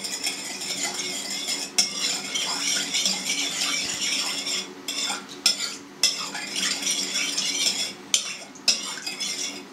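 Metal spoon stirring sugar into warm milk and water in a plastic bowl to dissolve it: a steady scraping swirl, with a few sharper knocks of the spoon against the bowl.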